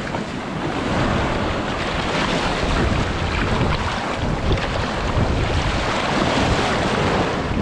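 Ocean surf washing onto the beach, with wind buffeting the microphone: a steady rushing noise with a low rumble.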